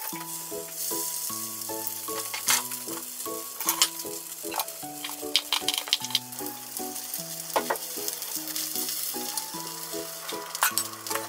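Spring rolls sizzling as they shallow-fry in oil in a frying pan: a steady hiss with scattered sharp crackles. A slow melody of background music plays underneath.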